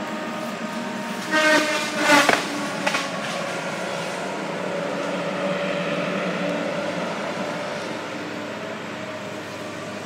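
Heavy logging machinery engines running steadily at a distance, a constant drone with a held pitch. About a second and a half in a brief louder pitched squeal-like sound rises over it, ending in a sharp knock.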